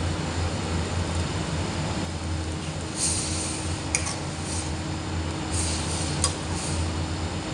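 A spoon stirring water and sliced onions in a metal karahi, scraping with a hiss from about three seconds in, with two sharp clinks of the spoon against the pan. Under it a gas burner runs with a steady low rumble.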